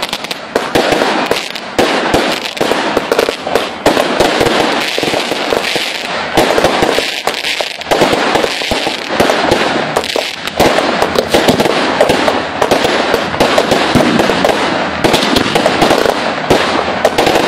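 Ground-launched fireworks firing at close range: a dense, continuous stream of sharp bangs and crackles with no break.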